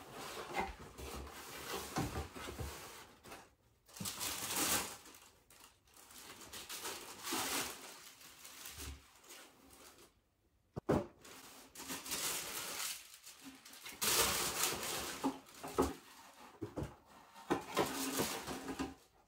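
Cardboard shoe box and tissue paper being handled as boots are unpacked: bursts of rustling and crinkling paper with brief pauses, and a sharp knock about eleven seconds in.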